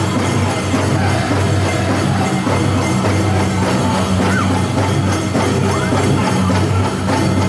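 Powwow drum group drumming and singing a chicken dance song.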